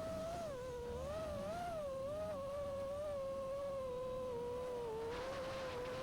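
Motors and propellers of a 5-inch FPV quadcopter (T-Motor Velox 2207 motors, Nazgul 5140 props) whining steadily, the pitch wavering a little up and down with the throttle, with a brief hiss of rushing air about five seconds in.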